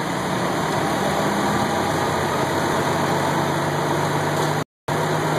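Steady engine drone: a constant low hum under an even hiss, with no change in speed. The sound cuts out completely for a moment near the end.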